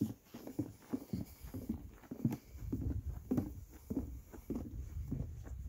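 Footsteps of a hiker walking along a wooden boardwalk, a steady run of dull thuds about two a second.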